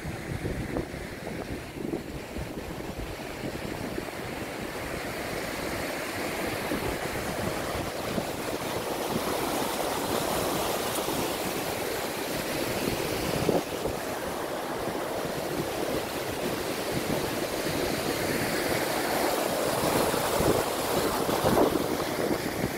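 Fast mountain river rushing in white water, growing louder as the walker reaches and crosses the footbridge over it. Wind buffets the microphone, and a few footsteps knock on the wooden planks.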